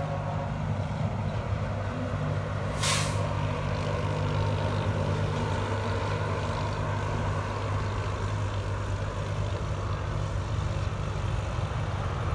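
Heavy diesel truck engine running steadily as the truck passes, with a short sharp hiss of compressed air from its air brakes about three seconds in.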